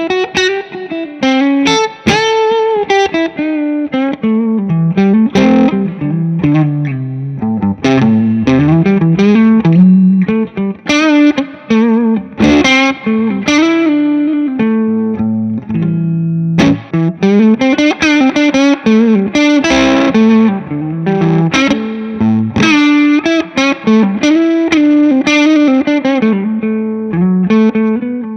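Gibson Les Paul electric guitar played through an amplifier: single-note lead lines with string bends and vibrato, mixed with some chords.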